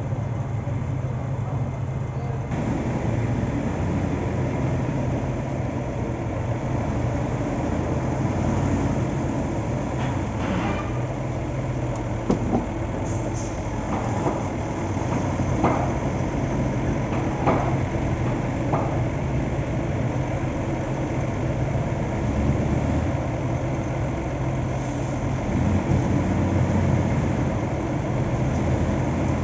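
Heavy diesel construction machinery running steadily, with several sharp metallic clanks and knocks in the middle stretch.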